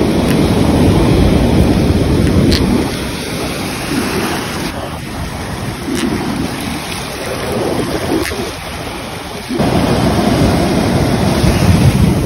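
Wind buffeting a phone microphone over surf washing up the beach, a dense low rumble with no speech. It eases off about a quarter of the way in and comes back abruptly about three-quarters through.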